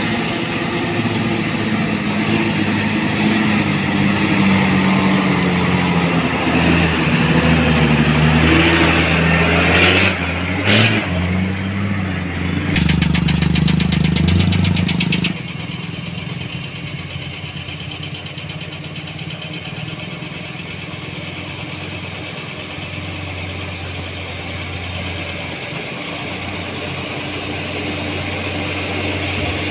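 Heavy diesel dump truck engines working uphill. The engine of a rock-laden dump truck pulls hard, its pitch rising and falling with gear changes. About halfway through, the sound drops abruptly to the steadier diesel of a Hino dump truck approaching, which grows louder near the end.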